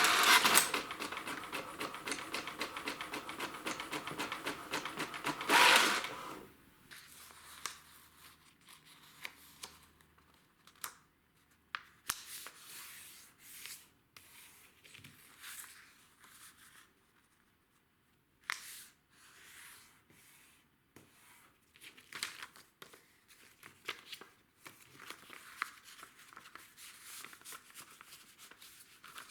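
Paper crackling and rustling densely for about six seconds, then only sparse rustles and small clicks.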